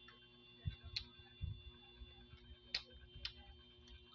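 Eating by hand from a ceramic plate: fingers picking at fried rabbitfish and rice make a few irregular sharp clicks and soft low thumps, over a faint steady hum.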